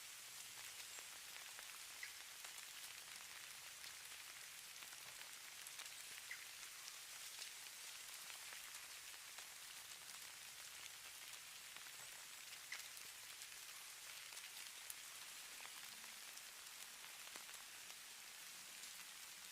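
Faint, steady hiss of falling snow pattering on surfaces, with scattered tiny ticks.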